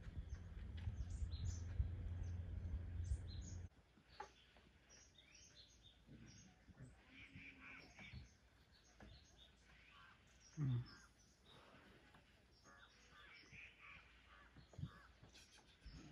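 Birds chirping and calling, many short calls. For the first few seconds they sit under a louder low steady hum, which cuts off suddenly about three and a half seconds in.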